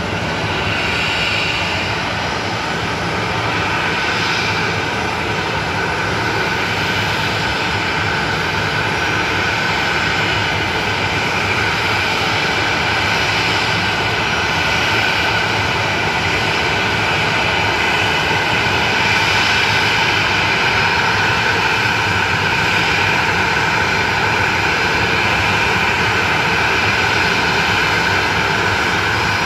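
Boeing 737-900ER's CFM56-7B turbofan engines running at low taxi power as the jet rolls in to the stand. A steady jet whine with several high tones held level, growing slowly louder as the aircraft comes closer.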